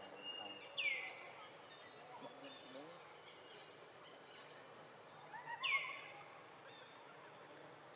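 Two short, high animal calls, each sliding downward in pitch, about five seconds apart, over faint outdoor background noise.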